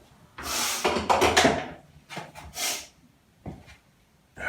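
Wooden skirting board being worked and handled by hand: a long rough scrape about half a second in, a shorter scrape past the middle, and a sharp knock a little later.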